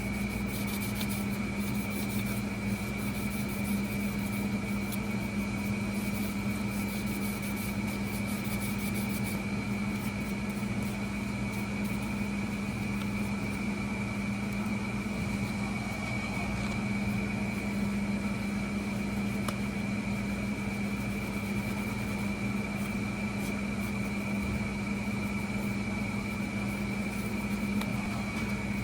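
Air conditioner running with a steady hum and a thin, high, steady whine.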